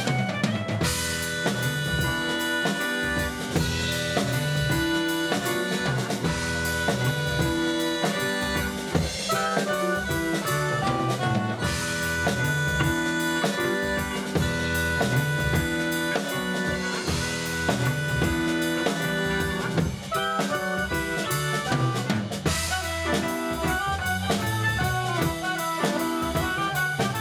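Live band playing a Breton ridée dance tune in seven beats: clarinet and soprano saxophone carry the melody over electric bass, keyboard and a drum kit keeping a steady groove.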